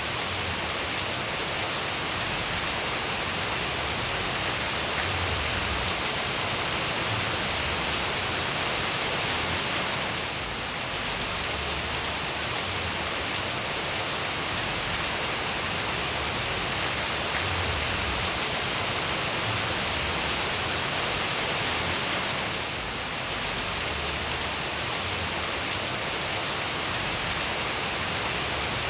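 Steady rain falling as an even hiss, dipping slightly for a moment twice.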